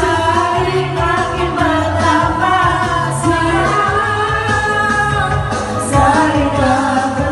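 A woman singing through a microphone and loudspeaker over recorded backing music with a steady bass beat, in the style of Asian pop or karaoke.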